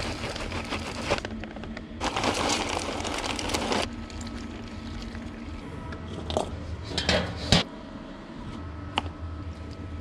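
Dry mesquite wood chips poured and shaken from a paper bag into a metal bowl, a rustling, rattling pour in two spells. About six seconds in, chunks of lump charcoal are tipped into a kettle smoker with a few knocks and a short clatter.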